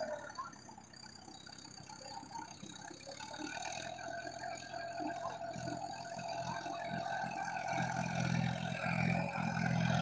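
Tractor engine running while it works a flooded paddy field, its low throb growing louder over the last few seconds as it comes nearer.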